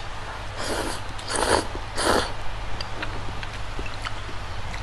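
Someone eating spicy noodles, with three short, loud slurps in quick succession in the first half and faint chewing clicks after.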